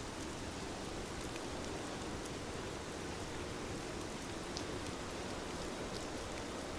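Steady rain falling on surfaces, an even hiss with scattered sharp drop ticks on top.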